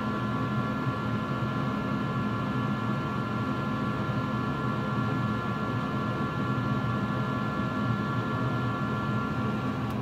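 Small electric vent fans inside a converted fridge-freezer running steadily with a whine. They push the freezer's cold air up into the top fermentation compartment, switched on by the temperature controller because the top is above its set point.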